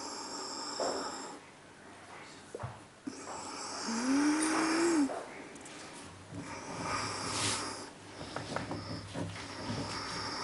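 A man puffing on a tobacco pipe: airy, wheezy draws through the stem and breathy puffs of exhaled smoke, in several spells. In the middle comes a short hum that rises in pitch and then levels off.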